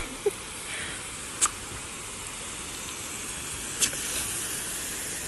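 Water hissing steadily from a garden hose's pistol-grip spray nozzle, with two short sharp clicks, one about a second and a half in and one near the end.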